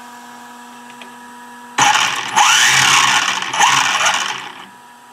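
Electric motor and 3D-printed plastic gears of a radio-controlled model car whirring loudly, starting sharply about two seconds in and rising and falling in pitch twice before dying away, over a faint steady hum.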